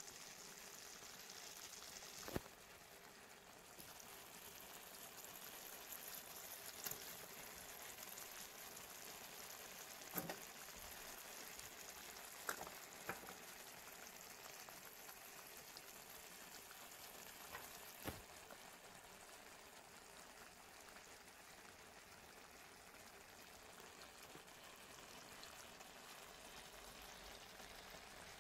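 Faint, steady sizzling of a sea bream and vegetables cooking in a pan, with about six light, sharp taps scattered through it.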